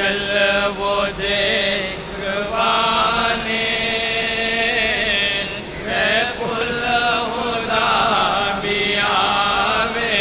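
Devotional chanting by a voice in long melodic phrases, with held, wavering notes and short breaks between phrases.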